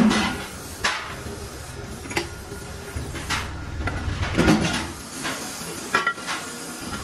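Irregular metallic clanks and knocks, about half a dozen, as an iron wheel disc and the chuck fittings of a metal lathe are handled, over a low steady hum.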